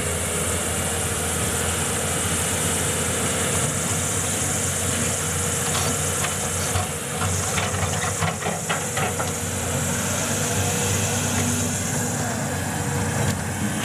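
Excavator's diesel engine running steadily, with a high hiss over a low hum. A cluster of short knocks comes between about six and nine seconds in.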